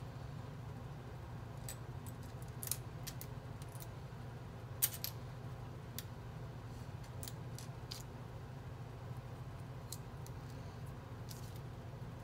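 Small plastic LEGO bricks clicking and clattering as pieces are picked from a loose pile and pressed onto a model: a scattering of sharp clicks, the loudest about five seconds in, over a steady low hum.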